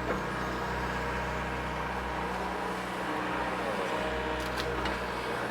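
Mini excavator's diesel engine running steadily, a constant hum with no change in pace.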